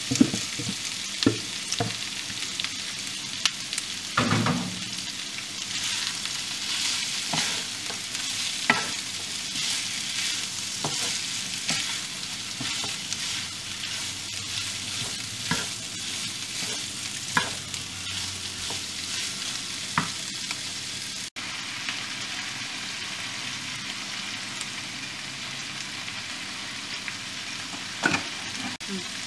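Chunks of spiced buffalo meat and vegetables sizzling in a hot wok while a wooden spatula stirs them, with a steady frying hiss and now and then a sharp knock of the spatula against the pan.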